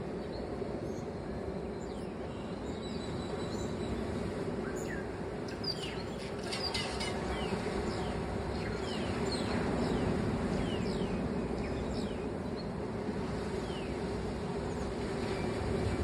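Steady wash of surf, with many short, sharply falling bird chirps coming thick in the middle part.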